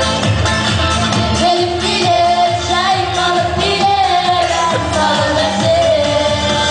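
Singers performing a song into microphones over amplified backing music with a steady beat, the sung melody gliding up and down.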